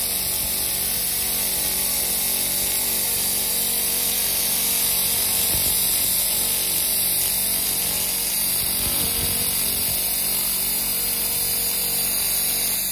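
LightWave 300GM handheld laser cleaner matting a metal surface: the beam's steady, high hiss as it ablates the surface, with a faint low hum underneath.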